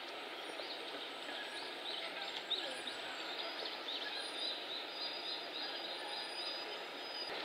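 A small bird calling repeatedly, with short high chirps that come faster, about four a second, in the second half, over steady outdoor background noise.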